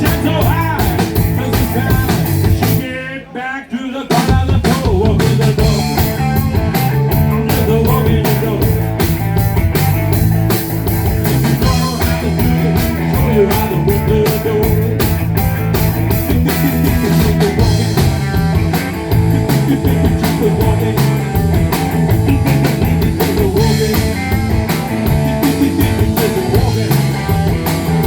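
Rock music playing with a steady beat, with a brief break about three seconds in.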